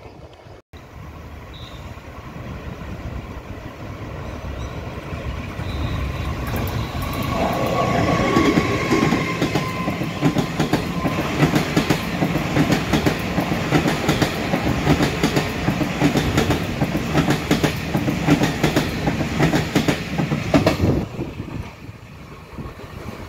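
Taiwan Railway electric locomotive towing an EMU900 trainset past, its wheels clicking rapidly over rail joints. It grows louder over the first several seconds, stays loud while the cars go by, and falls away sharply near the end.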